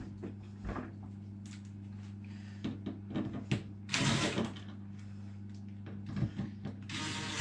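Scattered light clicks and knocks as a freezer door and its hinge screws are handled and fitted, with a louder scrape about four seconds in and again near the end, over a steady low hum.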